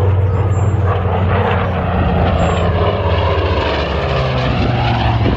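Piston-engine World War II fighter making a low pass, its propeller engine droning loudly with a higher tone that slowly falls in pitch as it goes by; the drone shifts about four seconds in.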